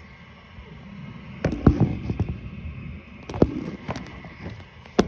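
Handling noise from a phone being picked up and repositioned: rubbing and bumping against the microphone, with a few sharp knocks about a second and a half in, again past three seconds, and near the end.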